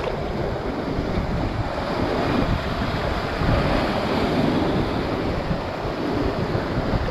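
Wind buffeting the microphone over the steady wash of ocean surf on a rocky shoreline.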